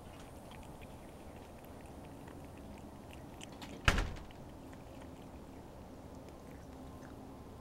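Cat lapping milk from an enamel bowl: faint, quick ticks of the tongue, with one sharp knock about four seconds in.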